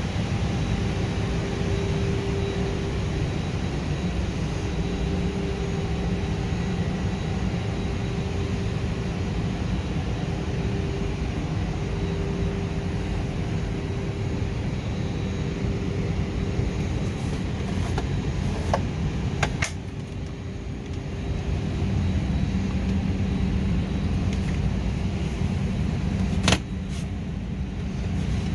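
Steady airliner cabin noise inside an Airbus A321neo: a constant rush of engine and air-system noise with a faint steady hum. It is broken by a few sharp clicks about two-thirds of the way in and a single knock near the end.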